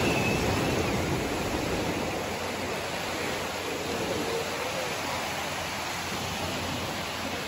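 Small waves breaking and washing up the sand at the water's edge, a steady rush of surf, a little louder at the start.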